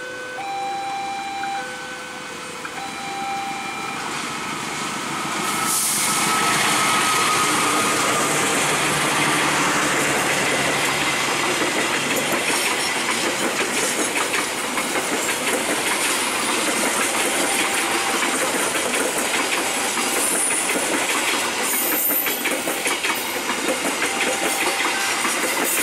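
An alternating two-tone electronic warning alarm sounds, then about six seconds in a passenger train goes by close at speed. The locomotive brings a sudden rise in sound, followed by the steady rumble and clickety-clack of a long string of passenger coaches' wheels over the rail joints.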